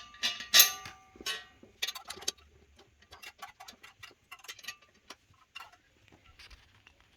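Metal assembly parts being fitted: a few loud sharp clacks near the start, then a run of small quick ticks as a long hex-socket screw is turned tight with a small hex key.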